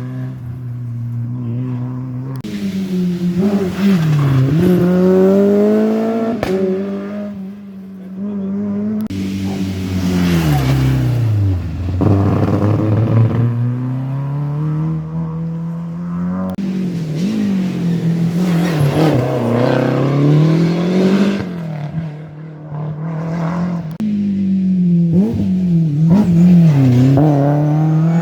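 Rally cars at full attack on a closed special stage. The engines rev hard, then drop in pitch through gear changes and braking, over and over.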